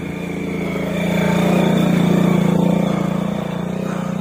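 Small motorcycle engine running with a steady note, growing louder over the first two seconds and then easing off a little.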